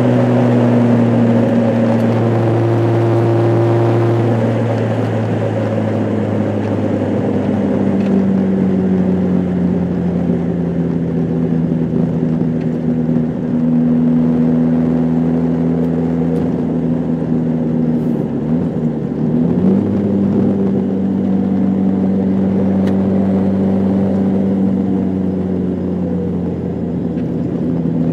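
Car engine and road noise heard from inside the cabin while driving at steady speed. The engine note holds steady, then dips and climbs again about nineteen seconds in.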